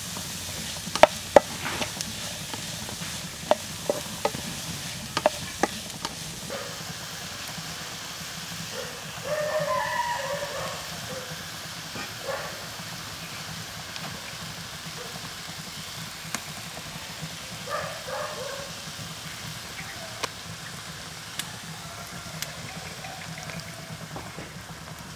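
Chopped onion and chili sizzling in a frying pan over a wood fire, with a spatula clicking and scraping against the pan during the first several seconds. A brief pitched call or voice sounds in the background twice, about ten seconds in and again near eighteen seconds.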